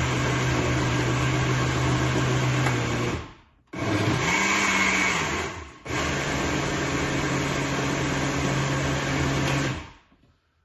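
Countertop blender chopping a thick mixture of wine-soaked fruit, run in three bursts: its motor stops about three seconds in, restarts, stops again near six seconds, restarts, and cuts off near the end. It is run in short pulses so as not to overheat the motor and to leave little bits of fruit rather than a purée.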